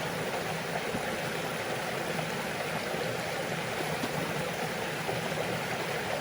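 Jungle river running full after rain: a steady rush of flowing water.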